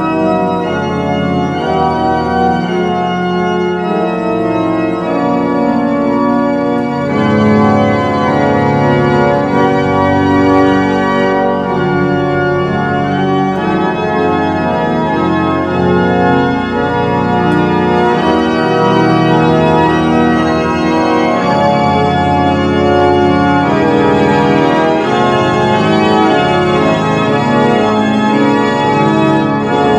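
Church pipe organ playing an improvisation on Advent hymns: sustained chords that change every second or so over a steady bass.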